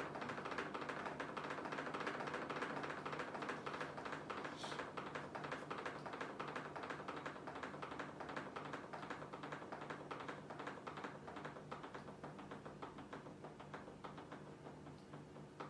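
Fingers tapping and clicking rapidly and irregularly on a Giulietti chromatic button accordion's buttons and body, imitating falling rain, gradually getting quieter.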